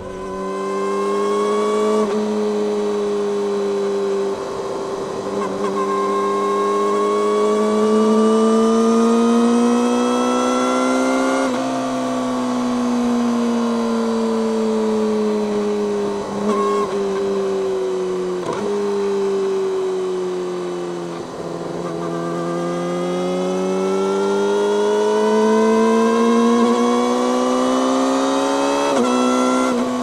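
Yamaha YZF-R6's 600 cc inline-four engine running through an Akrapovic megaphone slip-on exhaust while riding. Its pitch climbs slowly for about eleven seconds, steps down and sinks gradually as the bike eases off, then climbs again from about two-thirds of the way in.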